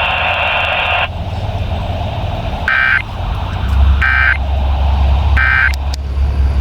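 Emergency Alert System end-of-message signal: three short, harsh digital data bursts about 1.3 seconds apart, marking the end of the test alert over the radio. A steady hiss cuts off about a second in, and a low hum runs underneath.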